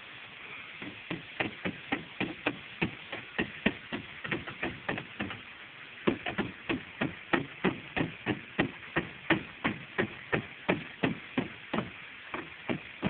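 Hammer tapping the soft lead base of a copper plumbing boot, quick light blows about three a second, in two runs with a brief pause about five seconds in: the lead is being dressed down to the curve of the clay tiles.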